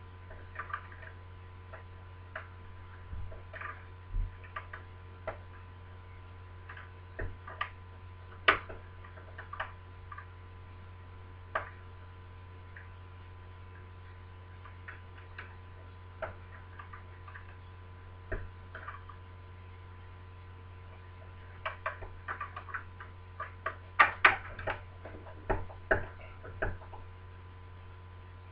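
Light, irregular metallic clicks and taps of a lever-lock pick working the levers inside a 1980 BS 3261 deadlock, the levers being tapped to feel them come up into the gate. The clicks are scattered at first and come in a quick cluster near the end.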